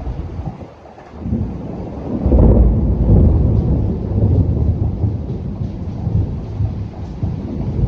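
Thunder rumbling over steady rain: a low roll builds about a second in, is loudest a second or so later, and keeps rolling on.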